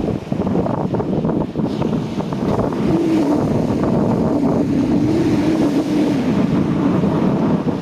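Wind buffeting the microphone over the wash of sea waves. From about three seconds in, a woman's voice holds one long sung note.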